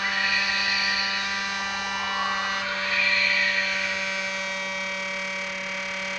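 Electronic sound effect from a Magic Mixies toy: a steady droning chord of many held tones, with shimmering swells rising over it near the start and again about three seconds in. A few of its tones drop out around three and four seconds in.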